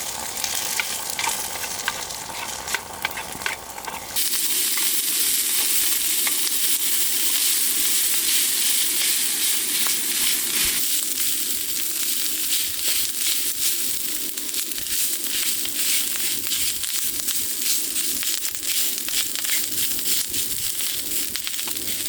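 Food sizzling and crackling in hot oil on a pan, a steady frying hiss with dense pops. It gets louder and brighter about four seconds in and shifts again about halfway through.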